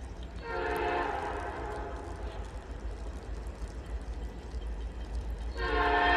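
A CN freight locomotive's multi-chime air horn sounds one blast of several chords, starting about half a second in and lasting under two seconds. A second, louder blast starts near the end. A low rumble runs underneath.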